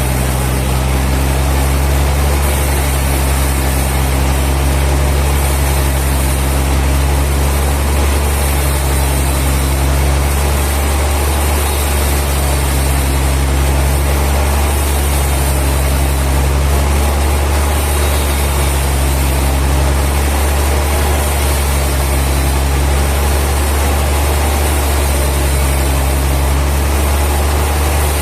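Sawmill machinery running steadily with a deep, even hum, with no change in load.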